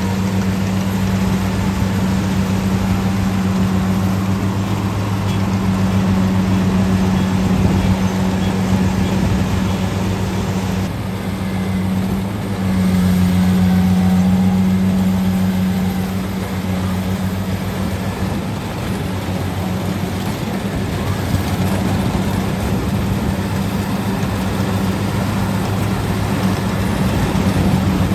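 Diesel engine of a rice combine harvester running steadily at a constant pitch, a little louder for a few seconds around the middle.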